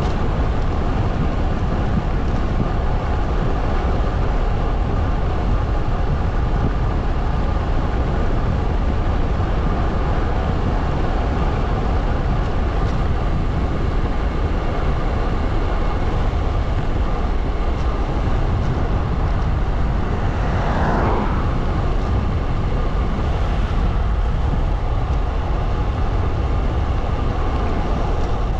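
Steady wind buffeting on the microphone with tyre and road noise from a road bicycle ridden at speed. About twenty seconds in, a brief sound sweeps up and back down in pitch.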